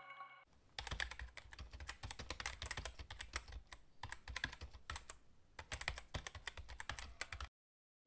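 Faint, rapid computer-keyboard typing clicks with a few short pauses, starting about half a second in and stopping shortly before the end. This is a typing sound effect laid under on-screen text being typed out.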